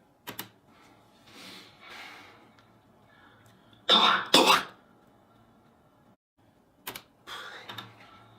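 A man coughing and clearing his throat: a short cough just after the start, a loud double cough about halfway, and another cough followed by throat clearing near the end, with abrupt silent cuts between them.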